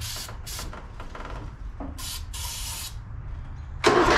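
Aerosol starting fluid (ether) sprayed in four short hissing bursts into the open carburettor intake of a Briggs & Stratton lawn tractor engine. Near the end the engine cranks and catches, starting with a sudden loud jump on the ether.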